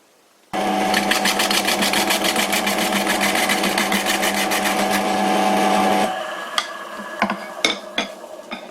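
Old Karger bench lathe spinning a wood blank while a gouge cuts it, a steady hum with a fast even chatter of about ten pulses a second. The cut stops about six seconds in and the lathe runs on more quietly, with a few light clicks.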